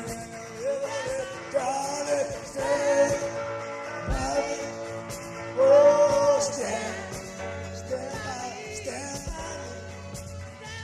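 Rough studio recording of a loose rock-and-roll jam: a band playing while a voice sings long held notes without clear words. The voice is loudest about six seconds in.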